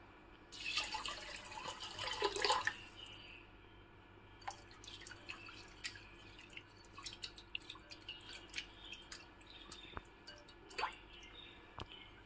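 Water poured into a glass bowl of raw rice for about two and a half seconds, then rice being rubbed and swished by hand in the water, with many small splashes and drips. This is rice being rinsed before soaking.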